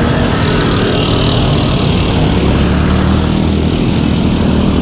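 Steady, loud road-traffic noise heard from a moving bicycle, as motorcycles and cars run close alongside in the next lane.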